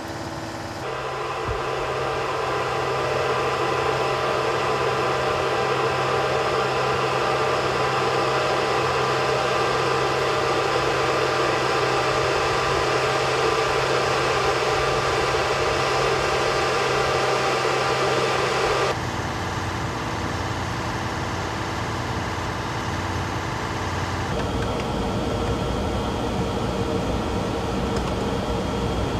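Steady hum of running machinery with several steady tones held throughout, like generators and equipment cooling fans. The mix changes abruptly about a second in and twice more in the second half.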